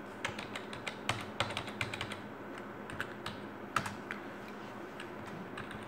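Typing on a computer keyboard: irregular light key clicks, a quick run in the first two seconds, then a few scattered clicks that thin out toward the end.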